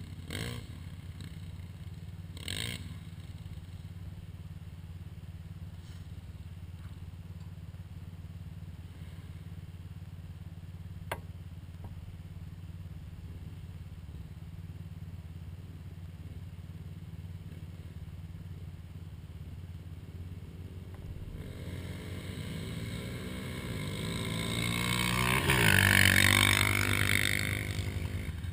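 ATV engine idling steadily with a low note. About three-quarters of the way in, another ATV engine grows louder, passes close with a shift in pitch, and fades away.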